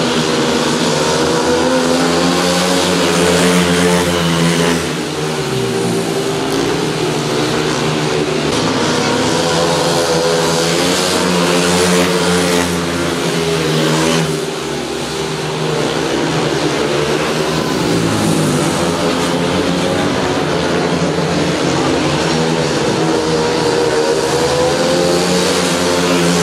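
Speedway motorcycles racing, their 500 cc single-cylinder methanol engines running hard at high revs. The pitch dips briefly about five and fifteen seconds in, then rises again.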